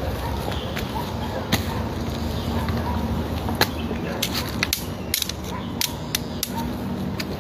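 Hiker's footsteps and scuffs on a rocky trail: irregular sharp clicks and knocks, bunched together about four to five seconds in, over a steady background rush.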